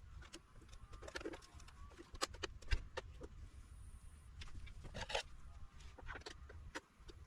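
Scattered small clicks and scrapes of a driver bit working a stubborn triangle-head screw in a plastic portable power station case. A low cooing, like a dove's, sounds in the background.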